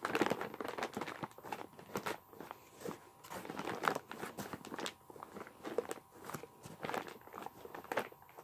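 Stiff white foam packing end cap being pressed and rubbed back into place around a boxed ASIC miner: irregular crunching and scraping with scattered sharp clicks.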